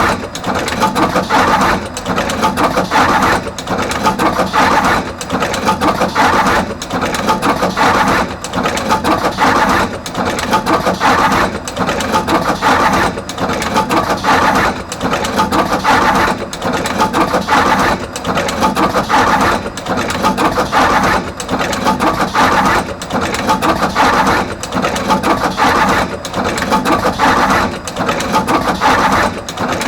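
Artos CR22 automatic wire crimping machine running in continuous production, crimping terminals onto both wire ends. Its cycle repeats steadily, about once every one and a half seconds.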